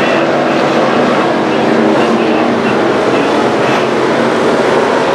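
Several street stock race cars' engines running together at speed, a loud steady drone with no break.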